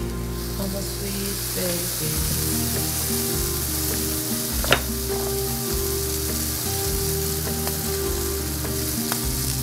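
Diced carrots and peas sizzling in a frying pan as they fry in squeezed-in mayonnaise. There is one sharp knock about halfway through.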